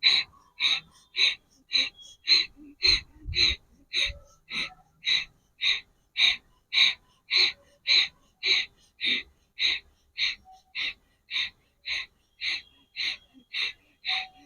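Bhastrika pranayama: rapid, forceful breaths in and out through the nose, evenly paced at a little under two a second, each breath sharp and short with a brief gap between.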